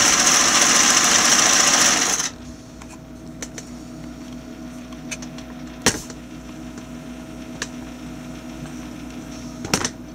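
Singer 347 sewing machine running at full speed under the foot controller, then stopping suddenly about two seconds in. After that only a low hum remains, with a few sharp clicks.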